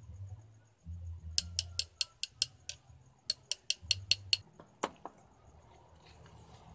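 Quick light metallic taps, about five a second in two short runs and then once more, as a thin metal rod taps against a small brass tube being packed with granular carbon load for a homemade aura meter.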